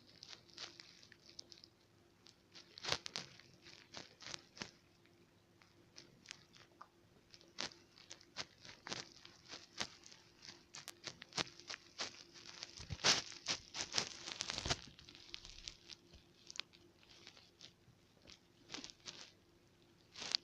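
Irregular rustling and crackling of handling during a cuddle, a scatter of short ticks that grows denser and louder about 13 to 15 seconds in.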